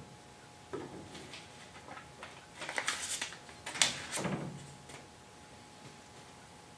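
Handling noises on a steel pickup bed: scuffing and rubbing from a gloved hand and a two-part adhesive cartridge gun, with a sharp knock a little under four seconds in. A faint steady hum sits underneath.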